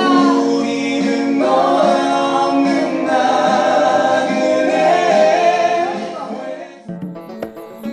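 A song with a sung melody over sustained backing music. About seven seconds in it cuts off and a piano-like keyboard starts playing separate struck notes.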